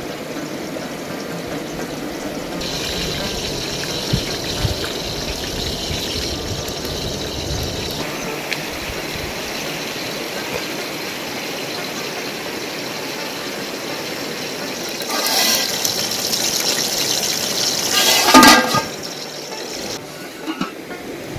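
Steady rushing of a mountain stream over stones, with a louder burst of noise for a few seconds near the end.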